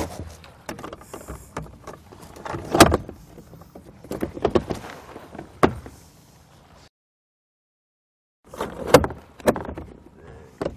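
Plastic boat seat being slid onto its seat base and settled into place: a series of knocks, scrapes and clicks of plastic against the mount. The sound drops out completely for about a second and a half in the middle.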